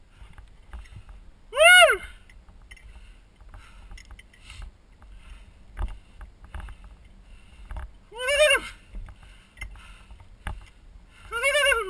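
A voice calling three times, each call short and arching up then down in pitch: about two seconds in, again after about eight seconds, and near the end. Between the calls there is a faint low rumble of wind on the microphone.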